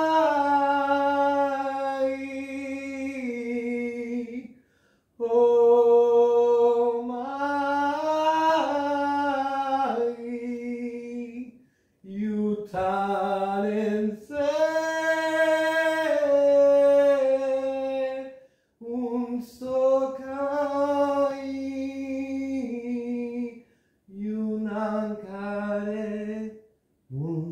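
A man singing alone, unaccompanied, in long held notes that slide gently in pitch. The singing comes in several phrases of a few seconds each, with brief pauses between them.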